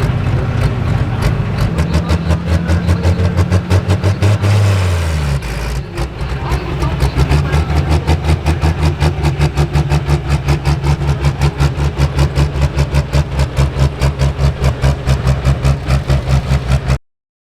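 Pro Stock pulling tractor's turbocharged diesel engine running with a rhythmic pulsing of about five beats a second, its pitch dropping about five seconds in. The sound cuts off abruptly near the end.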